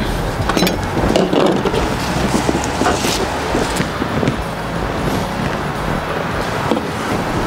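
Wind rumbling on the microphone, with scattered light clicks and scrapes of a chef's knife peeling and cutting an onion on a plastic cutting board.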